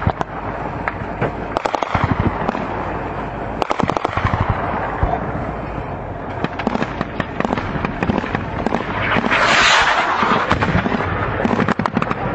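Gunfire in rapid, irregular bursts: many sharp shots close together throughout, with a louder rushing noise swelling and fading about nine to ten seconds in.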